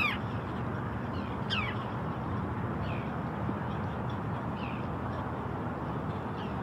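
Birds calling: a handful of short, falling cries spaced a second or so apart, the first the loudest, over a steady low rumble.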